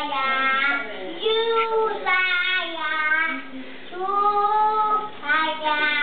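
A young child singing in drawn-out notes that waver up and down in pitch, phrase after phrase with short breaks.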